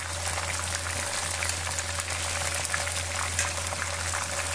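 Marinated chicken leg pieces frying in deep hot oil in a kadhai, sizzling and crackling steadily over a low steady hum.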